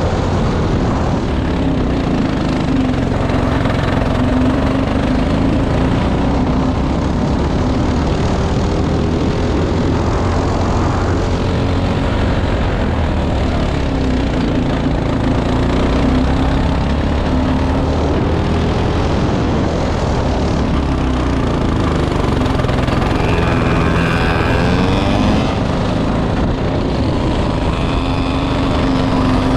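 Go-kart's GX-clone single-cylinder four-stroke engine running hard, its pitch rising and falling as it accelerates and lifts off through the corners. Heard from onboard, with wind rumble on the microphone.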